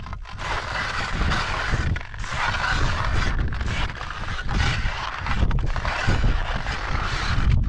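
Skis scraping over hard-packed snow, the hiss swelling and dipping every second or so with the turns, over a low rumble of wind on the microphone.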